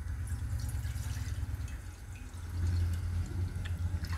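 Milk poured in a steady stream into a stainless steel saucepan, a low rumbling pour with light splashing that gets louder a little past halfway.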